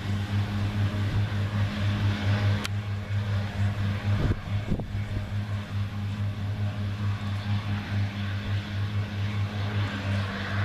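New Holland CR9060 twin-rotor combine running steadily, with a deep even hum under a broad rush of machinery noise. A single sharp click comes about two and a half seconds in.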